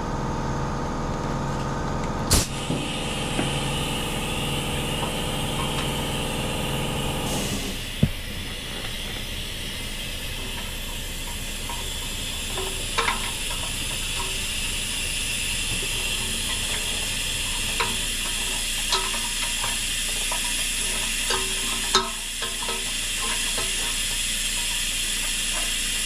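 Fuel extractor hissing steadily as it sucks leftover fuel out of a small engine's fuel tank through a hose, with a few light clicks and taps. A steady hum underneath stops about seven seconds in.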